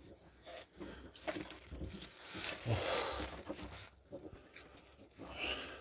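BMW E36 rubber fuel hose being twisted and wiggled by hand onto its metal fuel pipe, giving irregular rubbing, scraping and crinkling noises with small clicks.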